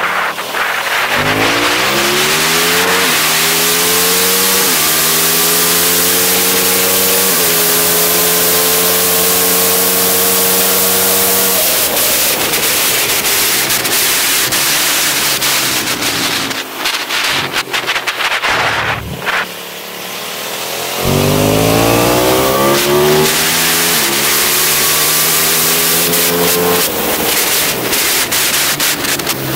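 Aprilia SXV 550 supermoto's V-twin with full titanium Akrapovič exhaust accelerating hard, pitch climbing and dropping sharply at three quick quickshifter upshifts. About halfway through it goes off the throttle and wind noise takes over for several seconds, then it pulls hard again through more upshifts before easing off near the end.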